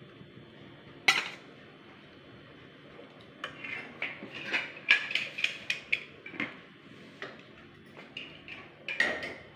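Metal ladle and spoon clinking and scraping against a pressure cooker and a steel bowl as chickpea curry is served out. There is one sharp clink about a second in, a run of quick clinks in the middle, and a few more near the end.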